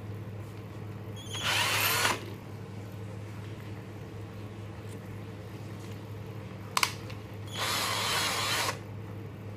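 Xenon XN-CDD505 cordless drill run in two short spurts of about a second each, one about a second and a half in and one near the end, spinning its keyless chuck open and then shut on a drill bit being fitted. A single sharp click falls between the two spurts.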